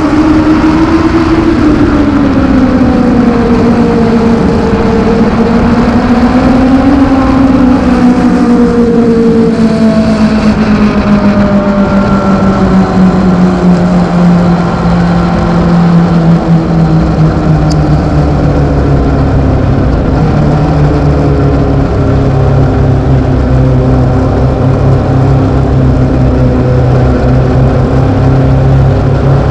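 Legends car's Yamaha four-cylinder motorcycle engine heard from inside the cockpit while racing. Its pitch rises and falls for the first several seconds, then settles into a steadier note that slowly drops lower over the second half.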